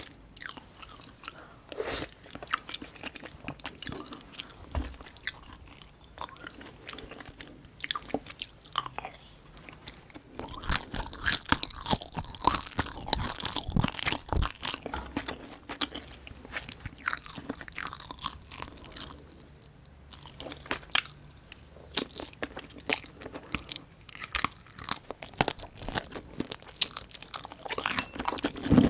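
Close-miked eating: chewing and crunching, with bursts of many quick sharp mouth clicks that grow busier around the middle and again near the end.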